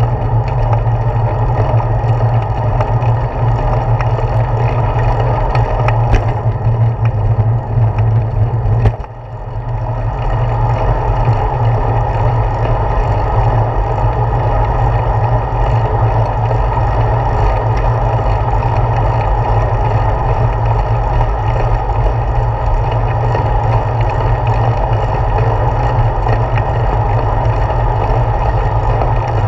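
Steady rumble of wind and road vibration on a handlebar-mounted GoPro Hero 4 as a bicycle rolls along a paved road, dipping briefly about nine seconds in.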